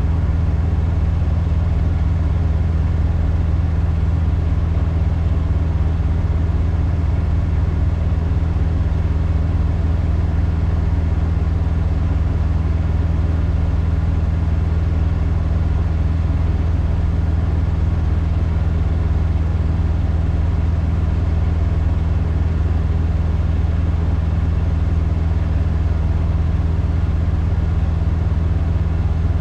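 Peterbilt semi truck's diesel engine running steadily at low revs as the truck is slowly backed in: a constant deep hum with an even pulsing throb and no change in pitch.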